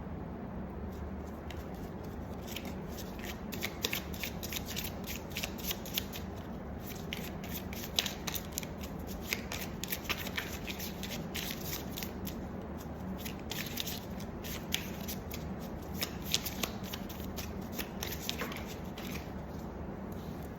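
A deck of tarot cards being shuffled and handled: a long run of quick, irregular papery flicks and snaps over a steady low hum.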